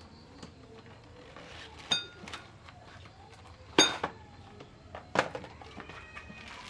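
Metal parts clinking and cardboard rustling as a boxed motorbike sprocket kit is opened and handled on a concrete floor. There are three sharp clinks, about two, four and five seconds in; the middle one is loudest and rings briefly.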